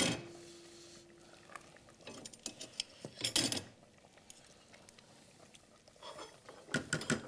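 Wooden spoon stirring a thick veal-tripe stew in a stainless steel pot, knocking and scraping against the pot's sides now and then. There is a sharper knock at the start and another a little past three seconds in.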